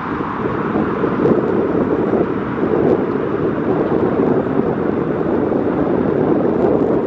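Loud, steady rush of jet noise from the Boeing 737 MAX 8's CFM LEAP-1B turbofan engines at takeoff thrust as the airliner departs.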